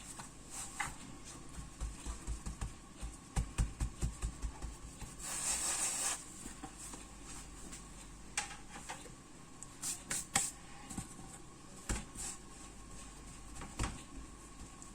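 Soft pats and light taps of hands shaping small balls of bread dough and setting them down, a run of quick low thumps a few seconds in, and a brief rustle about five seconds in.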